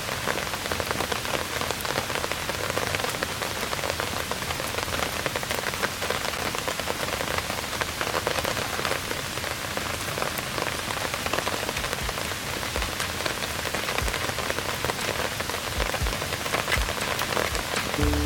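Steady rain falling on a camping tarp: a dense hiss of rain with many sharp individual drop hits.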